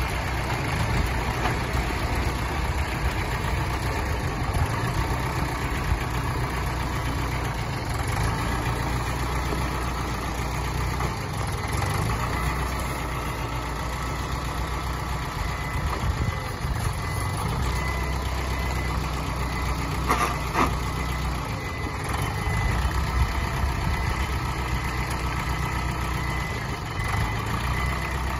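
Mitsubishi MT33 compact tractor's diesel engine running steadily at low speed as the tractor is driven slowly with a rotary tiller mounted on the back.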